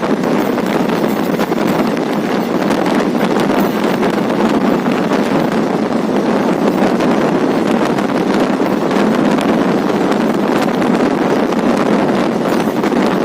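Train running at speed: a steady rumble of wheels on rails, with wind rushing past and many small clicks throughout.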